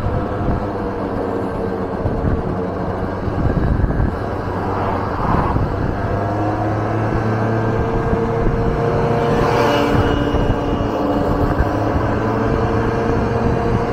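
Vespa scooter engine running steadily at cruising speed, with wind and road noise. Its pitch shifts slightly a few times.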